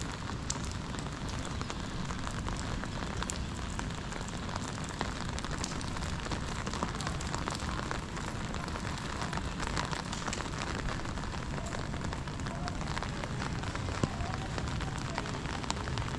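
Rain falling on wet paving: a steady hiss with many small drop clicks, and one sharper drip or tap about fourteen seconds in.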